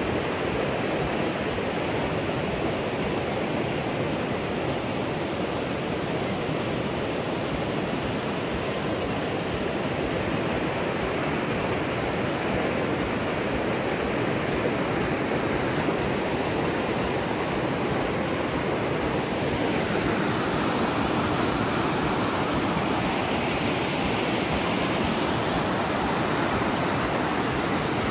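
Brown floodwater pouring steadily over a concrete check dam and churning white below the spill. It is a continuous rushing of water, a little louder after about twenty seconds.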